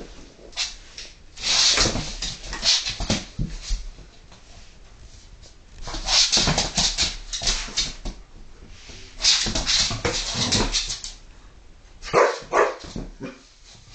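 Two poodles play-fighting, heard as four rough bursts of dog play noises and scuffling a few seconds apart, with sharper, lower sounds in the last burst near the end.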